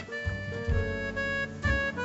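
Instrumental background music: held notes over a recurring low bass note.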